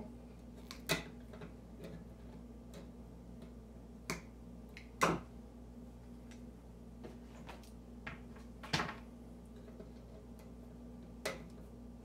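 Linesman pliers and copper wires clicking and clacking as neutral wires are twisted together for a wire nut: about five sharp, scattered clicks over a steady low hum.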